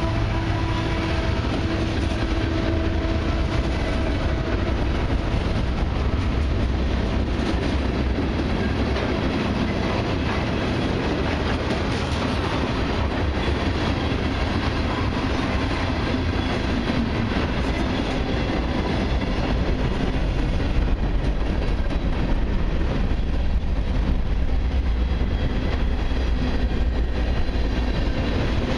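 Tank cars of a long freight train rolling past: a steady rumble of steel wheels on rail with irregular clacking over rail joints. A humming tone fades out over the first few seconds.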